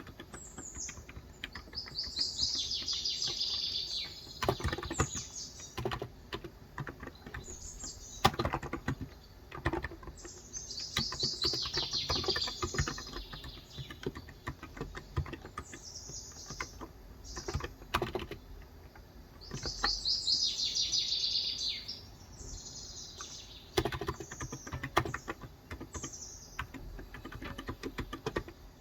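Typing on a Cox Endeavor electro-capacitive 35 g tenkeyless keyboard: scattered short runs of keystrokes with pauses between, as in editing rather than steady writing. A bird sings a fast, high trilled phrase three times, about every nine seconds, with shorter chirps in between.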